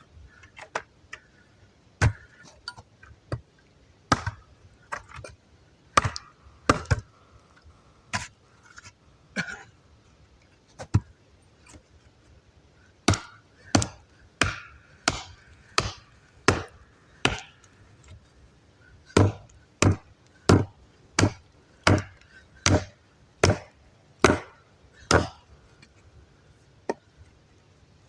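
Axe blows chopping a log of firewood: sharp wooden strikes, scattered at first, then a steadier run of about one and a half a second through the second half, stopping shortly before the end.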